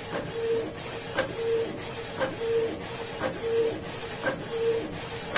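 Canon Pixma MG2570S inkjet printer printing a colour copy. A click and then a short steady hum repeat about once a second.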